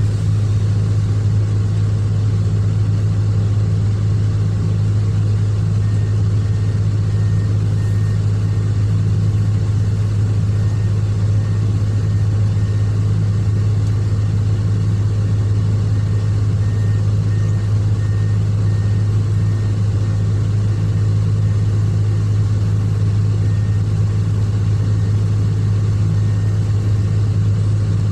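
Excavator's diesel engine running steadily with a deep, even hum, with faint short high beeps coming and going.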